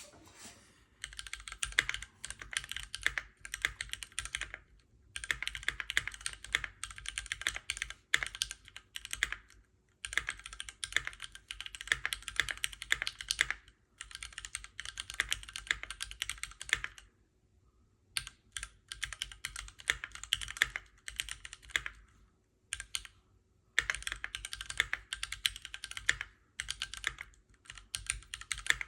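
Typing on a Keychron Q1 Knob version, an all-metal mechanical keyboard: quick runs of key clacks lasting a few seconds each, with short pauses between runs.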